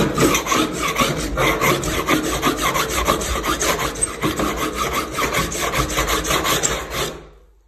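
Hand drywall rasp scraped rapidly up and down the cut edge of a 5/8-inch drywall patch, several rasping strokes a second, shaving down the edge that sits proud of the surrounding plaster. The rasping stops about seven seconds in.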